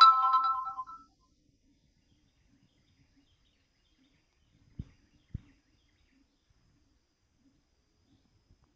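Howler monkeys roaring faintly in the distance. A loud pitched call lasting about a second opens it, and two soft thumps come about halfway through.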